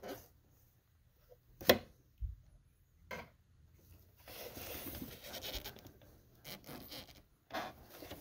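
A small metal spring clip on the clutch master cylinder being worked and prised off: a sharp click about a second and a half in, a low knock, another click, then scraping and rubbing.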